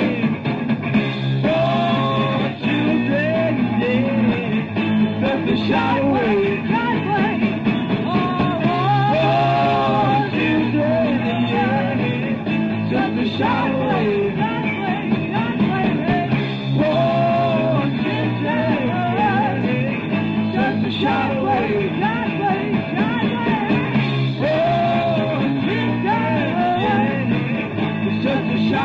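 Rock-and-roll band recording: a singer's melody over a steady band accompaniment, playing without a break.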